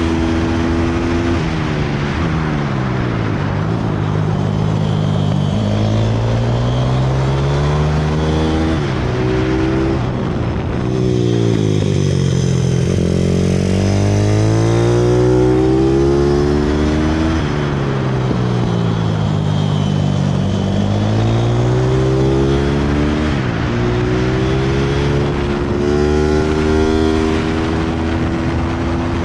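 Pit bike engine under hard riding, revving up through the gears and falling away under braking again and again over a lap: the pitch drops as the bike slows into corners, then climbs in steps with each upshift on the straights. Wind rushes over the microphone at speed.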